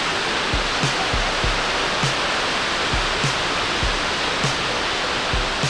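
Steady roar of the American Falls at Niagara, water crashing onto the boulders at its base, with a music track's steady beat of about two thumps a second over it.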